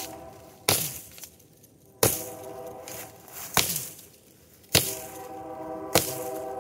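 Axe blows chopping into a tree trunk: five sharp strikes about a second apart, several of them followed by a brief ringing tone.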